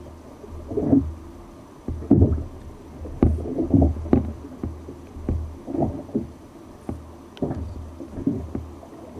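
Sea water slapping and sloshing against a fishing kayak's hull, in muffled surges about once a second, with a few sharp knocks.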